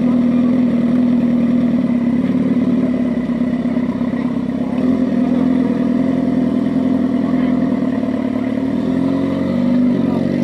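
Sport motorcycle engine idling with a steady hum, its pitch wavering slightly near the end.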